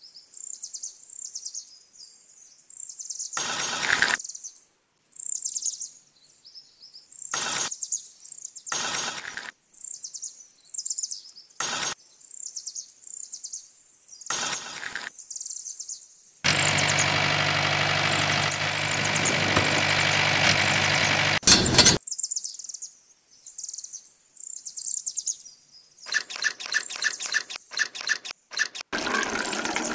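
Small birds chirp throughout, broken by short scraping and handling noises. In the middle, a small motor runs steadily for about five seconds and then stops abruptly. Near the end comes a quick run of clicks.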